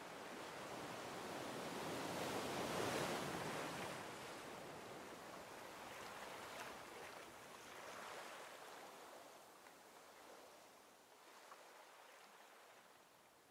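Ocean surf washing onto the shore: a wave builds and fades about three seconds in, and a softer one follows near eight seconds.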